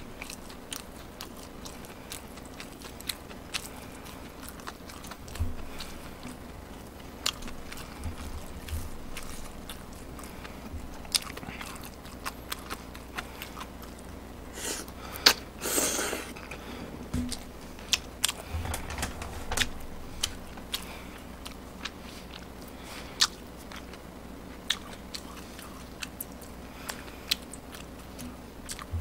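Close-miked eating: chewing with many small wet mouth clicks and smacks throughout, and a louder slurp of noodles about halfway through.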